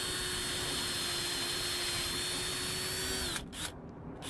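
DeWalt cordless drill boring a quarter-inch sap-tap hole into a Manitoba maple trunk: a steady motor whine that winds down a little over three seconds in, then spins up again at the very end.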